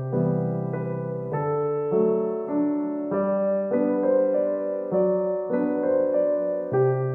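Background music: a gentle piano-style keyboard tune, notes changing about every half second in a repeating pattern.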